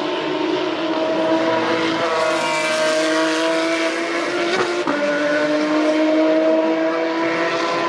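Several FIA Formula 3 race cars' naturally aspirated 3.4-litre Mecachrome V6 engines running at high revs together, their overlapping notes holding steady and edging upward, with a brief break, likely an upshift, about five seconds in.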